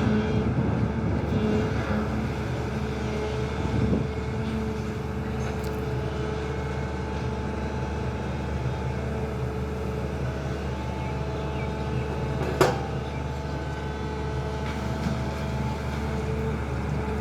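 Excavator's diesel engine running steadily, with a single sharp knock about twelve seconds in.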